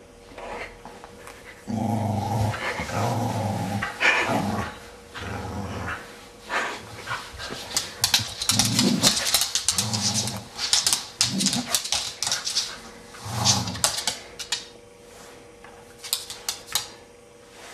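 Dog growling during play: a series of low, rough growls, some over a second long, with sharp clicks and scuffling in between.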